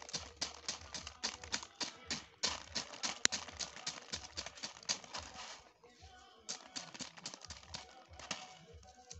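Dry maize kernels being shelled off the cob by hand: a quick, dense run of clicks as the kernels snap loose and drop onto a woven tray, pausing briefly about six seconds in before starting again.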